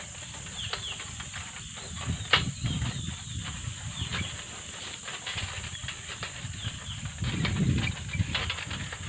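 Birds chirping: short, quickly falling chirps repeated every second or so over a low rumble, with a steady high hiss and one sharp knock about two seconds in.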